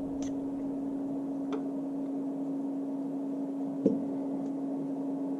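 A steady one-pitch hum over a soft background noise, with a few light clicks, the clearest about four seconds in.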